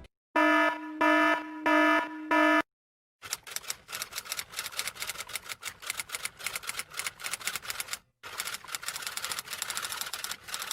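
An electronic warning alarm sounding a quick run of pitched beeps for a couple of seconds. Then a manual typewriter, its keys clacking rapidly in a fast, uneven stream, with a brief pause partway through.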